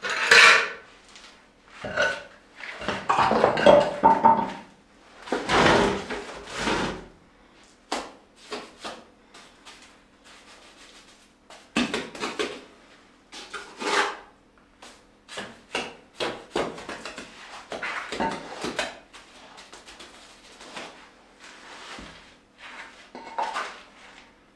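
A small trowel scraping and spreading mortar around stone floor slabs, in irregular strokes with occasional sharp knocks. The loudest scrapes come in the first seven seconds.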